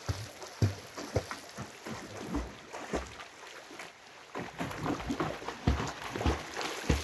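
A swimmer's arm strokes splashing and slapping the water, a splash roughly every half second, quieter for a moment around the middle.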